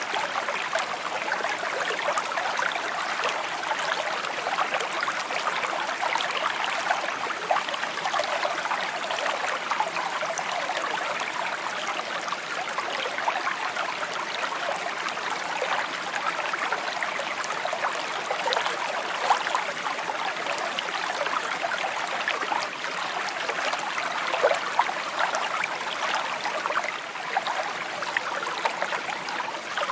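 A shallow brook babbling and trickling over stones, steady, with many small splashes and gurgles.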